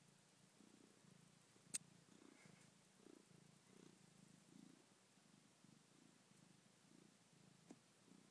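Domestic cat purring, a low rumble that pulses about every three-quarters of a second. A sharp click about two seconds in and a smaller one near the end.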